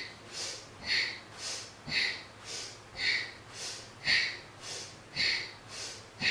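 A woman's forceful, rhythmic breathing through the nose, about one full breath a second, with a louder breath alternating with a softer one. This is the powerful breath paced with repeated shoulder shrugs in a kundalini yoga set, inhaling as the shoulders lift and exhaling as they drop.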